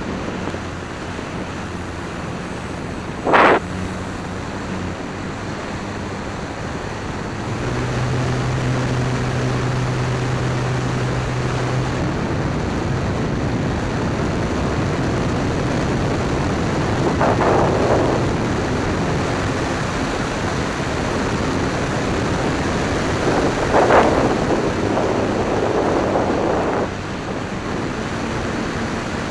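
Electric motor and propeller of a Dynam Waco RC biplane in flight, heard from a camera on the plane: steady rush of airflow over the microphone with a motor hum that holds a steady low note for a few seconds about a quarter of the way in. A short sharp noise comes a few seconds in, and the rushing swells louder twice, around two-thirds through and again near the end.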